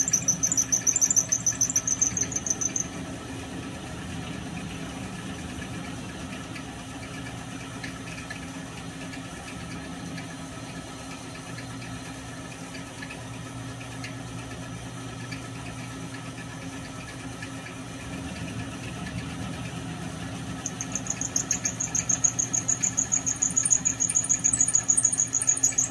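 End mill on a small milling machine cutting into a metal model-engine crankcase half, giving a loud, pulsing high-pitched squeal for the first few seconds that stops and comes back about 21 seconds in. Between the cuts the mill's motor runs on with a steady hum.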